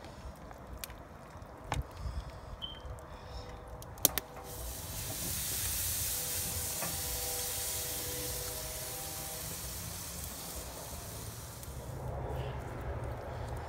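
Raw marinated butterflied chicken sizzling on a hot charcoal grill grate: a steady loud hiss that starts about four seconds in, just after a sharp knock, and eases off near the end. A few lighter clicks come before it.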